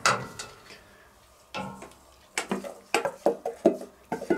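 A spatula knocking and scraping diced vegetables out of a stainless steel bowl into a stainless steel cooking kettle. There is one knock at first, then a quick run of clacks and knocks of utensil on metal from about a second and a half in.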